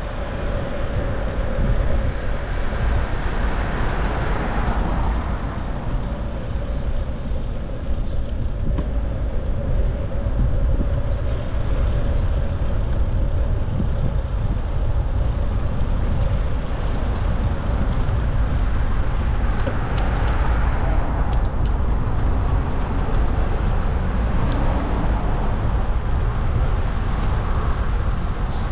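Road traffic heard while cycling along a city street, with a constant low wind rumble on the bike camera's microphone. A steady hum fades out after about five seconds, and several vehicles pass later on.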